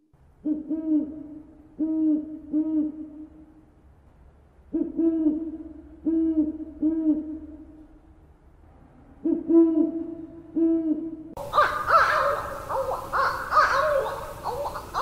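An owl hooting in three series of three to five deep hoots, about half a second apart, with pauses of a second or two between series. About eleven seconds in, a harsher, noisier stretch of calling begins suddenly.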